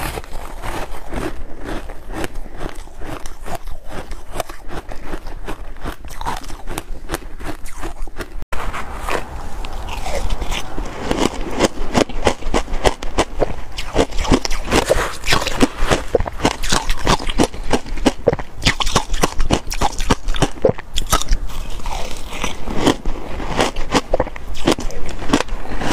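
Close-miked crunching of ice being bitten and chewed: a fast, crisp run of crunches. There is a short break about eight seconds in, after which the crunching is louder and denser.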